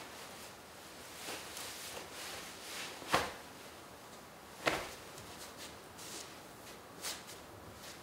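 Jacket fabric swishing and rustling as the wearer raises, spreads and lowers his arms, with two sharper swishes about three and four and a half seconds in.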